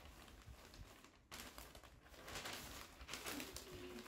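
Faint rustling of packing paper as items are wrapped, with a short low bird call of two brief notes near the end.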